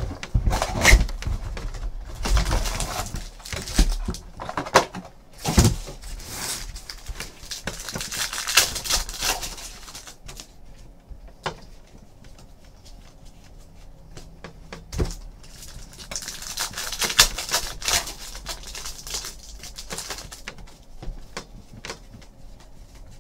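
Crinkling and tearing of a Panini Diamond Kings trading-card pack wrapper being opened by hand, in bursts through the first ten seconds and again about two-thirds of the way through. Between the bursts come the quieter clicks of cards being slid and flipped.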